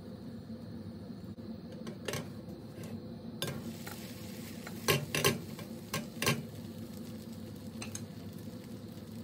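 A plastic slotted spatula scraping and knocking against a nonstick frying pan as a pancake is lifted and flipped, with the loudest knocks bunched about five to six and a half seconds in. A steady low hum runs underneath.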